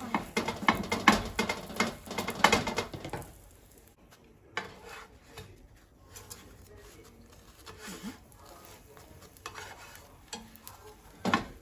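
A utensil stirring and scraping food in a frying pan, with sizzling underneath: a dense run of clattering strokes for about three seconds, then lighter, scattered taps.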